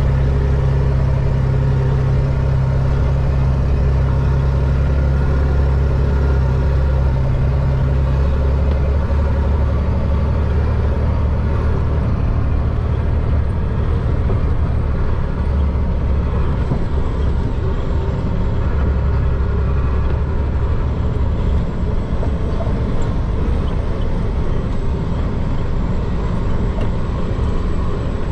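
Chenglong concrete mixer truck's diesel engine running steadily under way, heard from the driver's seat with road and drivetrain noise. Its deep note eases slightly about a third of the way in.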